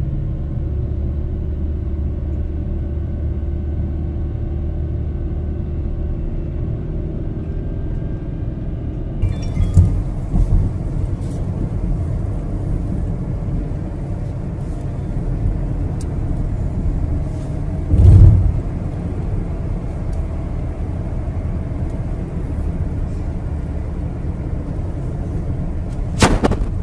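Steady low rumble of a car driving, heard from inside the cabin, with an abrupt change in the sound about nine seconds in. A loud thump comes about eighteen seconds in.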